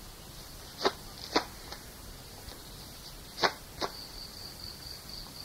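Recording hiss with a faint high whine, broken by short, sharp clicks or knocks: two about a second in, two more about three and a half seconds in, and a couple of fainter ones between.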